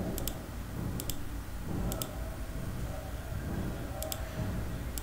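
Computer mouse clicking five times, each click a quick double tick, roughly once a second with a gap in the middle, over a low steady room hum.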